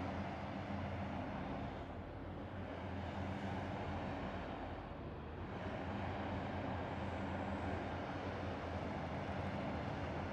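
Demolition excavator's diesel engine running steadily, a low even drone with no crushing or impacts heard.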